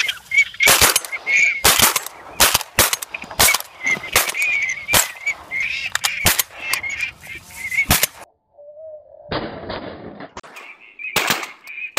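Shotgun shots in quick succession, more than a dozen in about eight seconds, over continuous high, wavering calling from a flock of ducks. After a short lull, one or two more shots near the end.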